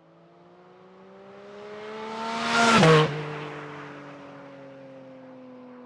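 Porsche 718 Cayman GT4 RS with its 4.0-litre flat-six on the stock exhaust, accelerating past. The engine note rises and grows louder, drops sharply in pitch as the car goes by about three seconds in, then fades away.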